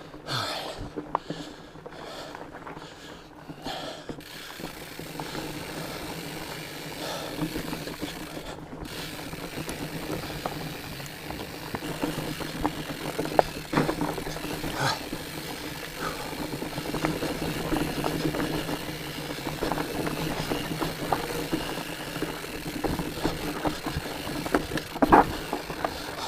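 Fat bike being ridden along a dirt trail: wide tyres rolling over dirt and roots, with the bike rattling and scattered sharp clicks and knocks, the loudest near the end.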